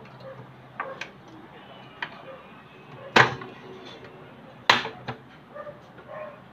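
A few sharp clicks and knocks, the two loudest about three seconds and four and a half seconds in, over a faint steady background.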